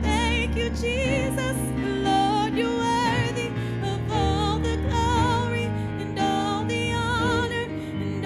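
A gospel song: a woman singing with vibrato over sustained chords played on a Yamaha Motif XS8 keyboard.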